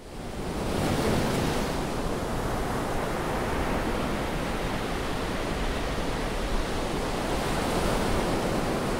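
Ocean surf washing onto a beach: a steady rush of breaking waves that fades in over the first second.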